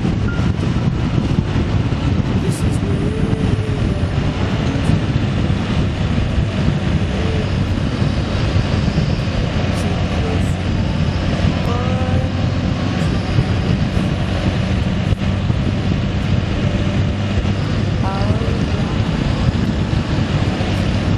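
Steady engine drone of a moving vehicle with road and wind noise, running at an even pace, with a few faint short pitched sounds in the middle and near the end.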